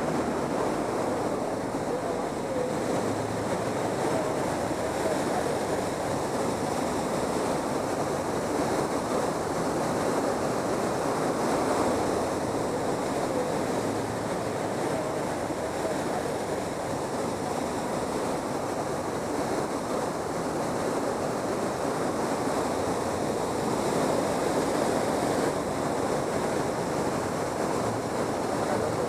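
Steady rush of water pouring over the Moconá Falls, an even unbroken noise.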